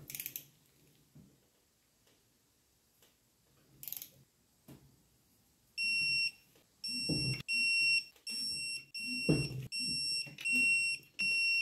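Digital click-less torque wrench (Snap-on) beeping as a differential cover bolt is drawn up toward its 55 N·m setting: a run of about eight short, high, same-pitch beeps starting about halfway through. There are also a couple of dull knocks.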